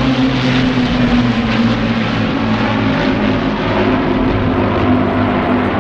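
Avro Lancaster bombers flying past with their Rolls-Royce Merlin piston engines running: a loud, deep, multi-engine propeller drone whose pitch slowly falls.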